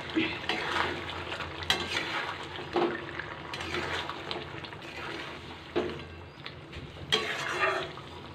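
Spatula stirring pieces of rohu fish through thick curry gravy in a metal kadai: irregular scraping strokes against the pan about every second, over the low sizzle of the simmering gravy.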